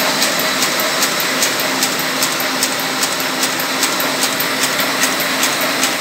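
Ryobi 582T sheet-fed offset printing press running, a steady mechanical whir with a regular ticking about two and a half times a second as it feeds paper.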